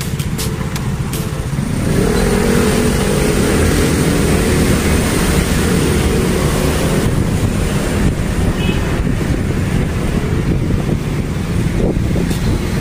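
Busy street traffic. A motor vehicle's engine rises and falls as it goes by about two seconds in, then steady traffic noise continues under a low rumble.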